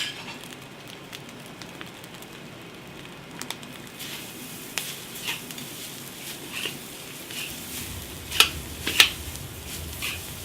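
Egg noodles with yellow chives and spring onion sizzling in a wok over a high flame, the metal spatula scraping and clacking against the wok as they are tossed; two loud clanks about eight and nine seconds in.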